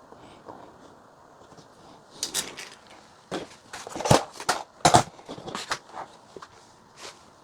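A run of irregular sharp clicks and knocks, the sound of parts and tools being handled on a workbench, starting about two seconds in and loudest near the middle.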